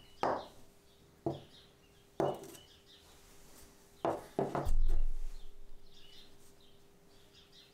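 Small steel parts, among them a drill chuck, set down and knocked on a wooden workbench top: five sharp knocks roughly a second apart, then a duller low thump about five seconds in. Birds chirp faintly in the background.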